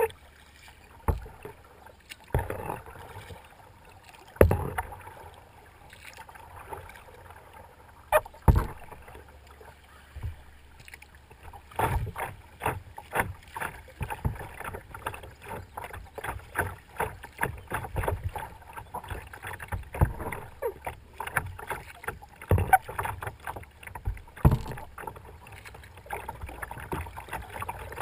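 Kayak paddle strokes splashing into the water, one every couple of seconds at first. From about twelve seconds in, a busier, continuous chatter of water slapping and gurgling against the plastic hull as the kayak runs through riffles.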